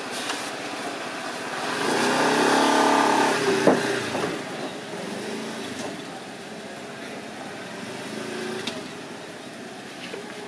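A motor vehicle engine passing by, swelling about two seconds in and fading out a couple of seconds later, with a fainter one near the end. A few sharp clicks, the loudest right at the vehicle's peak.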